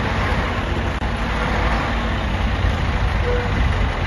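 Wheel loader's diesel engine running steadily.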